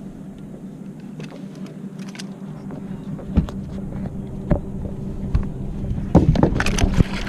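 A boat motor hums steadily under scattered knocks against the hull. Near the end, splashing and clattering grow louder as a hooked muskie is brought to the net.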